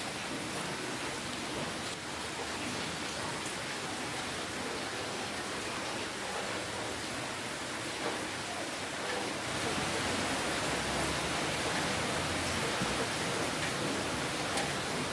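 Steady rainfall, an even hiss with faint scattered drop ticks, growing a little louder about ten seconds in.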